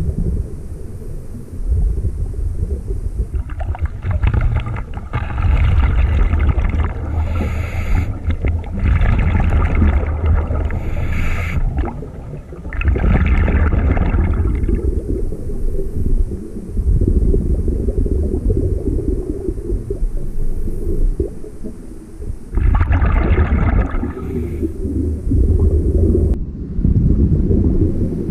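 A scuba diver breathing through a regulator underwater: hissing inhalations, each a second or two long, come at irregular intervals between stretches of low bubbling rumble from exhaled air.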